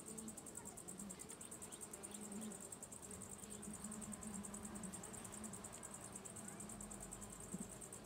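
Honeybees buzzing faintly around an open hive: a low hum that wavers in and out. A fast, even, high-pitched trill runs behind it throughout.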